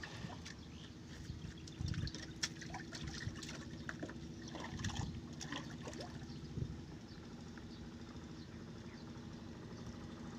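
Small splashes and trickling of water around a man's arms as he works in the water at a boat's stern, fitting a box around the propeller. Faint, with a low steady hum underneath.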